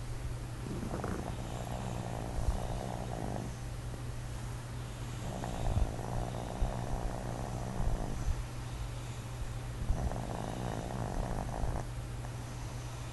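A sleeping person snoring: three long snores about four to five seconds apart, over a steady low hum.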